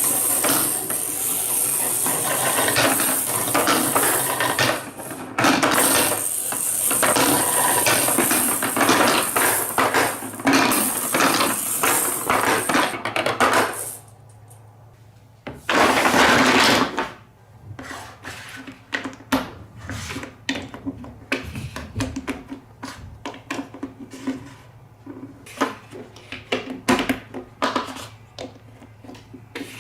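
Marbles in a block marble run: a dense, continuous clatter of many marbles for about the first half, a short loud rush of marbles a little past halfway, then scattered single clicks and taps as marbles roll and drop through the pieces.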